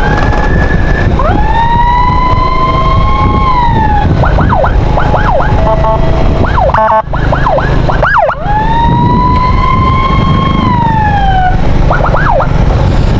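Ambulance electronic siren cycling through its modes: two long wails, each rising, holding and falling away, with rapid yelp sweeps between them and a short burst of yelps near the end. A steady low rumble runs underneath.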